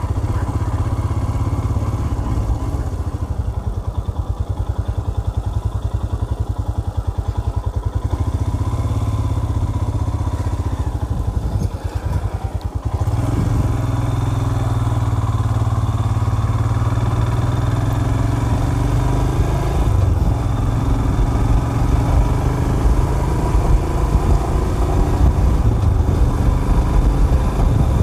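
Motorcycle engine running under way, a low steady drone. It dips briefly about twelve seconds in, then picks up again a little louder.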